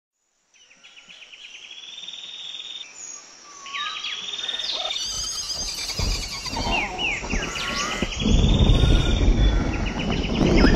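Birds chirping and trilling in quick repeated runs with short sweeping calls, fading in. A low rumble joins about five seconds in and swells louder near the end.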